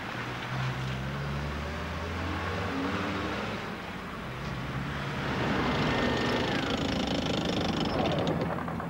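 Military vehicle engine running as it drives: a steady low engine note, then a louder, rougher rumble from about five seconds in.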